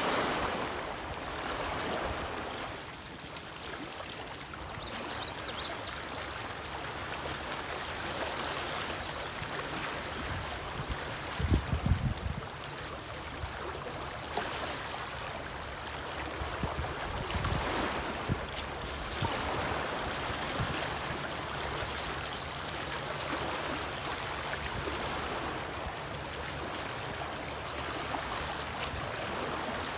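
Small choppy waves lapping and splashing against the rocky lakeshore, a steady wash of water noise. A brief burst of low thumps about twelve seconds in is the loudest moment.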